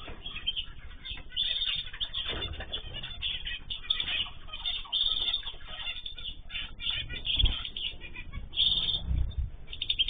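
A mixed flock of ornamental cage birds (cockatiels, zebra finches, canaries and goldfinches) chirping busily and without pause, with wings flapping now and then in a few louder low flutters.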